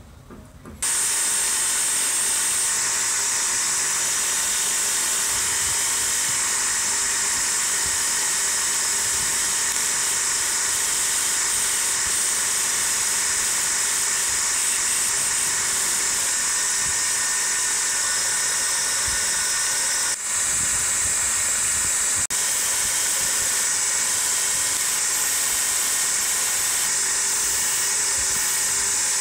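Power tool running steadily with a high hiss. It starts about a second in and drops out briefly twice about two-thirds of the way through.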